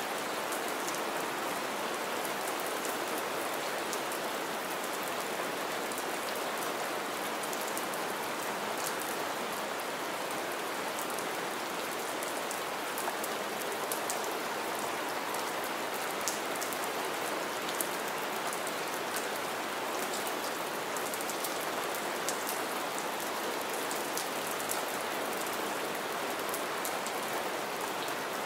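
Steady rain falling, an even hiss of rain with many small, sharp ticks of single drops landing close by.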